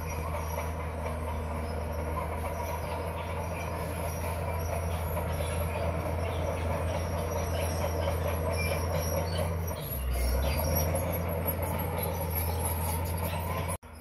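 Komatsu crawler bulldozer's diesel engine running steadily under load, with its steel tracks clanking as the blade pushes dirt and stone. The engine note changes briefly about ten seconds in, and the sound cuts off abruptly just before the end.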